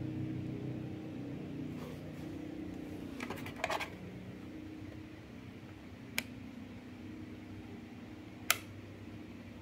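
Handling clicks from a Winner DT-830B digital multimeter and its probes: a quick cluster of light clicks about three and a half seconds in, a single click a few seconds later, and a sharper, louder click near the end as the rotary selector dial is turned. A faint steady low hum runs underneath.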